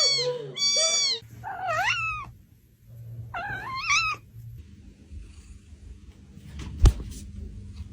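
A cat meowing: several drawn-out calls that waver in pitch over the first four seconds. Then a low steady hum and a single sharp thump about seven seconds in.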